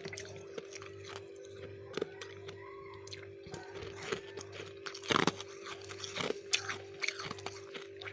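Freezer frost being bitten and chewed, with scattered crisp crunches that are loudest about five and six seconds in, over a steady low hum.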